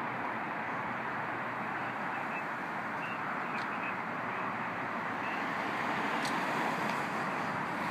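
Steady road traffic noise, an even rushing hum with no single vehicle standing out, with a few faint short chirps over it.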